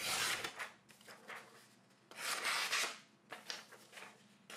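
Freshly sharpened knife slicing through a sheet of printer paper: two slicing hisses about two seconds apart, with a few faint rustles of the sheet between. It is a paper-cutting test of an edge straight off the sharpener, not yet stropped.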